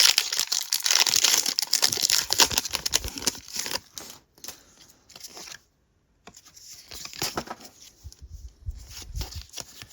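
Foil wrapper of a Paldean Fates Pokémon TCG booster pack being crinkled and torn open. It is loudest for the first three seconds or so, stops briefly about six seconds in, then crinkles again.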